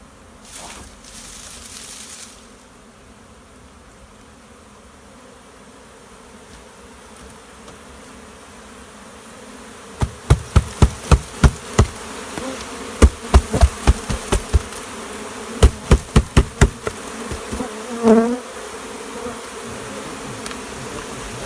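Honey bee swarm buzzing steadily. From about halfway through, a run of loud, sharp knocks, roughly three a second, lasting about seven seconds.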